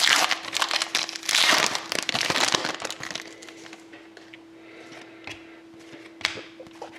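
Plastic-foil wrapper of a hockey card pack crinkling loudly as it is torn open and handled for about three seconds, then quieter scattered clicks as the cards are flipped through. A faint steady hum runs underneath.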